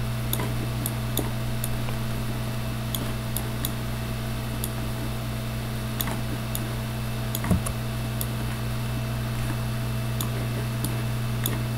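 Steady electrical hum and hiss of a desktop recording setup, with faint scattered clicks and a soft thump about seven and a half seconds in.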